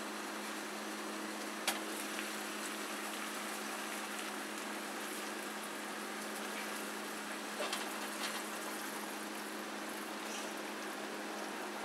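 Pot of water with scallions at a boil over high heat, a steady bubbling hiss with a steady low hum under it. A sharp clink about two seconds in and a few light knocks around eight seconds, as the glass lid comes off and the whole chicken is lowered in.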